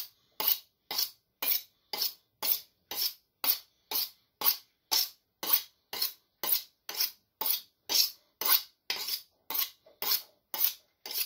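A big kitchen knife drawn along a sharpening rod in even strokes, about two a second, each a short scrape of steel on steel: a dull blade being sharpened.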